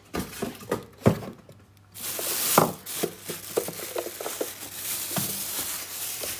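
Thin clear plastic bag rustling and crinkling as it is pulled off a small electric omelette maker, with a few knocks from the appliance being handled. The rustling is loudest from about two seconds in.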